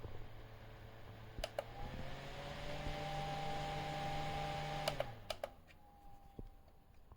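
ELZO rechargeable USB mini desk fan running. After a couple of clicks its motor hum rises in pitch and the airflow hiss grows as it steps up to a higher speed. A few more clicks about five seconds in, and it winds back down to a lower speed.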